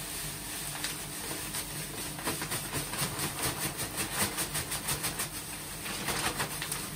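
Malted grain poured from a plastic bag into a stainless steel keg mash tun: a steady rustling hiss of grain sliding and landing, with crinkling of the bag, thickening into a dense rattle in the middle of the pour.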